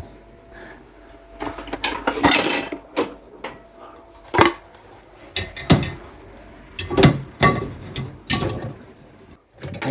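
Dishes and crockery clinking and knocking as they are placed into dishwasher racks, in irregular knocks with brief ringing.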